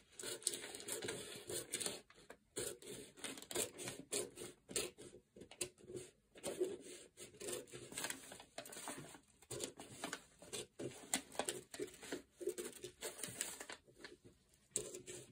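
Scissors snipping through paper pattern in a long run of short, irregular cuts, following the yoke line of the pattern.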